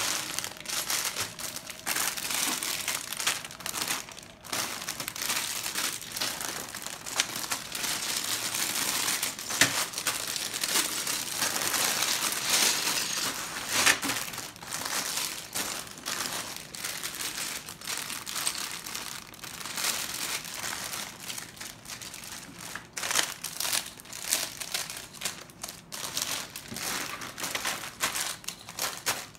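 Clear plastic bags full of Lego pieces being picked up, shuffled and set down: continuous crinkling of the bags, with many small clicks and taps from the pieces and the bags.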